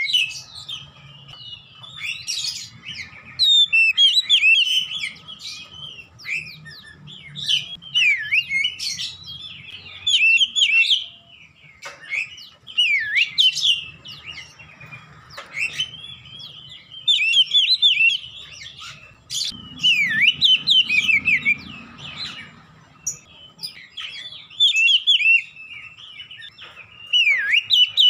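Oriental magpie-robin singing in full song: bouts of rapid, varied whistled phrases, many notes falling in pitch, broken by pauses of about a second, with no words.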